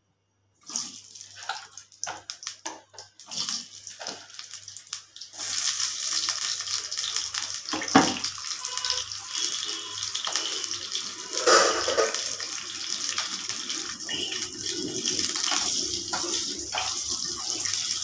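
Potato pieces frying in hot oil in a wok: a few scattered crackles, then a steady sizzle that sets in about five seconds in and keeps going, with a couple of sharper knocks along the way.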